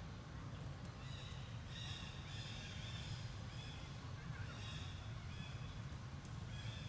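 Repeated short, high bird calls over a steady low rumble, with a few faint clicks.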